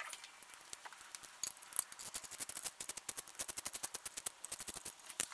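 Quiet, rapid, irregular clicking and light rattling from hand tools and parts being worked at the throttle body. The clicks come several a second and grow denser after about a second and a half.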